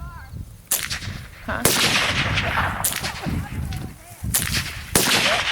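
Five gunshots fired at uneven intervals of roughly a second, each sharp crack followed by a short ringing tail.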